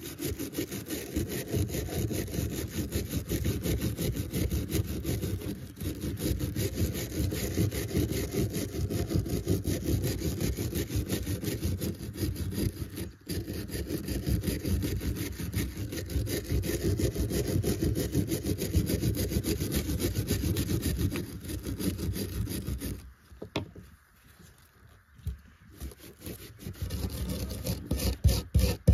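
Steel wire brush scrubbed in fast, even back-and-forth strokes to take rust off the metal of old grass shears on a wooden table. The scrubbing stops about 23 seconds in for a few seconds, then starts again near the end.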